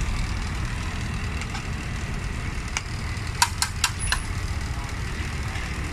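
Steady low rumble of street traffic and idling engines, with four sharp clicks in quick succession a little past the middle.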